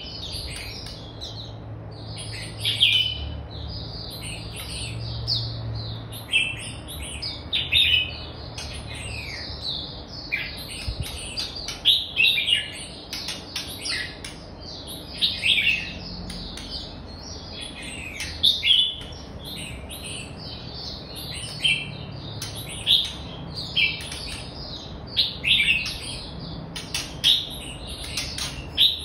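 Red-whiskered bulbul singing: short, sweeping chirpy phrases repeated every second or two.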